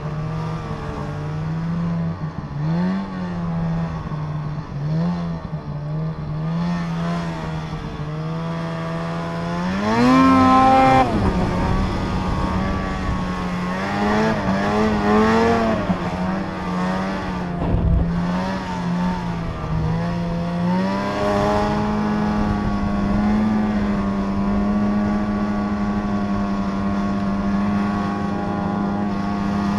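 Snowmobile engine running under way, its pitch rising and falling with the throttle, with a sharp rev about ten seconds in and a low thump a little past halfway. Over the last third it holds a steady, higher pitch.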